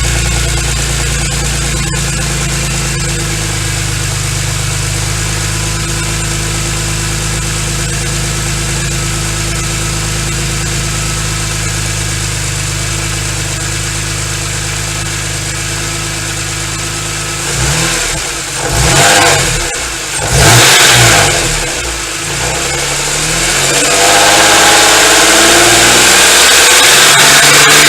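BMW E46 M3's S54 3.2-litre straight-six idling steadily, then revved in two short blips and held at a raised speed for the last few seconds. The owner reports a rattle that appears only around 2000 rpm and asks whether low engine oil is the cause.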